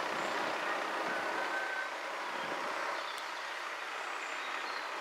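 Level crossing road alarm sounding steadily as the road warning lights come on.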